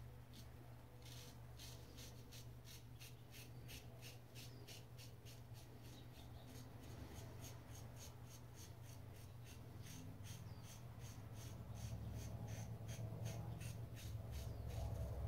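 Gem Micromatic Open Comb single-edge safety razor scraping through lathered facial stubble in short, quick strokes, about three a second: a faint, scratchy rasp.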